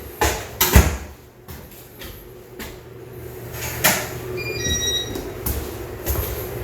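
Restroom door with a digital keypad lock being worked: a few sharp clicks and knocks from the handle and door, then about four and a half seconds in a short run of electronic beeps at different pitches from the lock.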